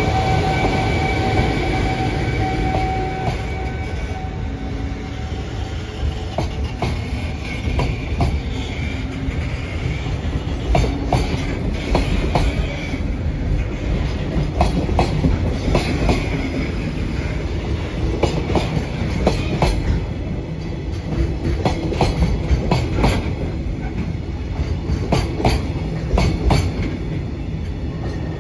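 Container freight train hauled by a JR Freight EF210 electric locomotive rolling slowly past. A steady electric whine fades over the first four seconds as the locomotive moves away, then the container flatcars' wheels clatter over the rail joints in an uneven clickety-clack.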